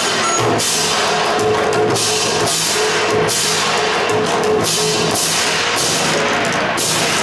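Live drum ensemble on large barrel drums, played loud through a stage sound system, pounding out about two strong beats a second with a held pitched note beneath.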